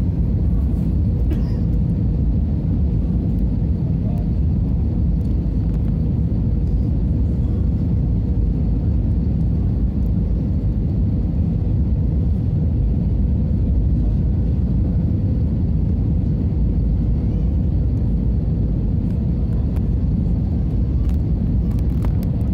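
Jet airliner cabin noise during the landing approach with flaps extended: a steady, loud rumble of engines and rushing air heard from a window seat, with a faint steady hum above it.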